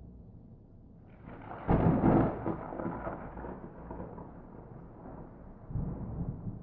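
Thunder: a sharp crack about a second in, loudest just after, then a long rolling rumble that fades. A second swell of rumble comes near the end.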